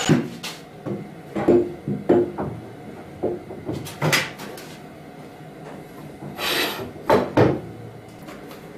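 Scattered knocks and clunks of bar clamps and a cordless drill being handled against a plywood cabinet carcass, about eight separate hits, with one short scraping rush a little past the middle.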